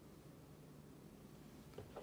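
Near silence: faint room tone, with a soft small tap near the end.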